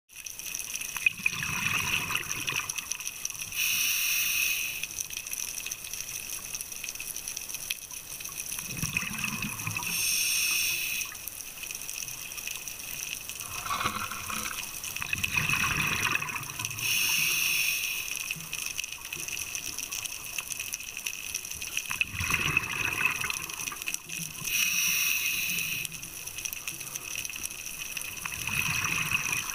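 Scuba diver breathing through a regulator underwater: a hissing inhale, then a burst of exhaled bubbles, repeating about every six to seven seconds.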